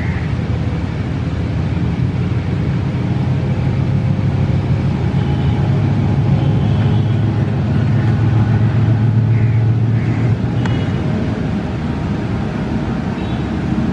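GEU-40 diesel-electric locomotive's engine running as it approaches through floodwater covering the track, under the wash of water thrown aside by its wheels. The low engine drone grows louder, peaking about ten seconds in, then eases slightly as it draws alongside.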